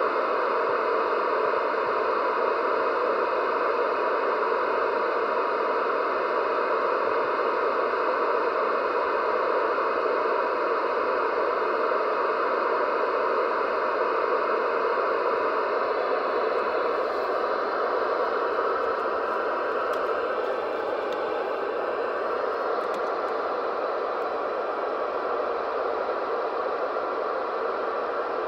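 CB radio hissing steady static through its speaker on an idle channel, with no one transmitting. The hiss eases slightly quieter about two-thirds through.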